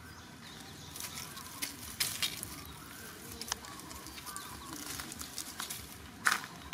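Dry leaves crackling and rustling in short scattered bursts as macaques move over leaf-strewn ground, with a louder crackle near the end.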